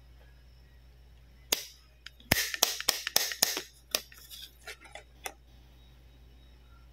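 Handling of toy plastic and card: a run of sharp clicks, taps and light rattles, dense for about a second and then tapering off, as a card patient chart is taken out of a pink plastic toy clipboard.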